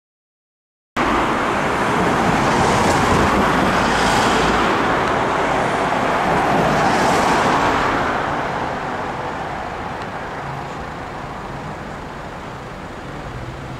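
Road traffic passing close by: a steady noise of tyres and engines that starts about a second in and slowly fades after about eight seconds.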